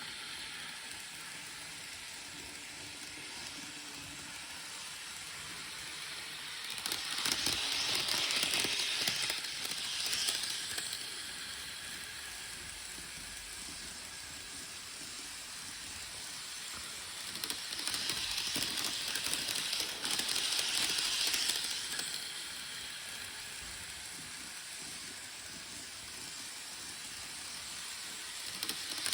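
Model train running on its track: a steady rolling hiss that swells twice, about seven and about seventeen seconds in, each time for roughly four seconds, as the train passes close by.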